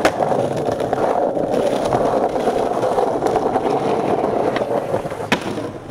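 Skateboard wheels rolling over rough stone paving, with a sharp clack from the board right at the start and another, louder one about five seconds in.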